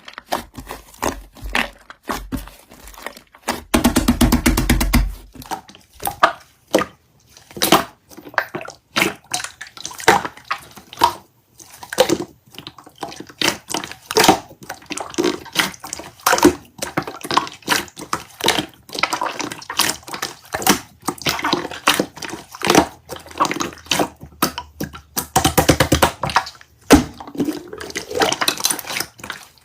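Slime being squished and pressed by hand: a steady run of irregular wet clicks and pops, with two longer squelching stretches, one about four seconds in and one near the end.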